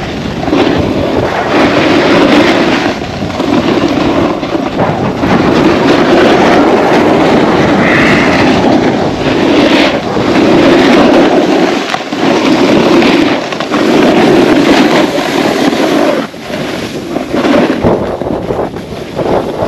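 Wind rushing over the microphone of a point-of-view camera during a run down a snow slope, mixed with the scrape of the rider's edges on the snow. The noise swells and eases every second or two, as turns would make it.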